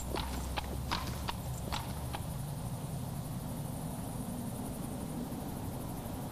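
A horse's hooves clopping on stone paving as it is led in, about six steps over the first two seconds, then they stop.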